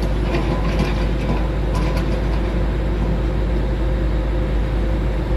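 Komatsu PC200-7 hydraulic excavator's diesel engine running steadily, with a few metallic clanks and rattles.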